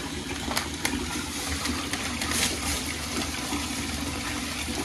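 Bathtub faucet running into a partly filled tub, the water splashing steadily, with a few light clicks over it.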